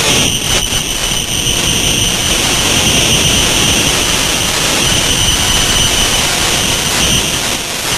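Loud, heavily distorted, effects-processed logo audio: a dense, harsh wash of noise with a steady high tone held throughout.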